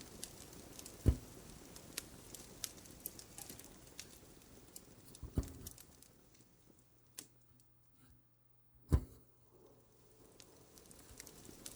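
Fireplace crackling with scattered sharp pops over a low hiss; the crackle dies away for a few seconds in the middle and then comes back. Three soft low thumps stand out, about four seconds apart.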